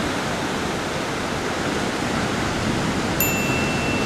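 Ocean surf: a steady wash of breaking waves. About three seconds in, a thin, steady high tone comes in.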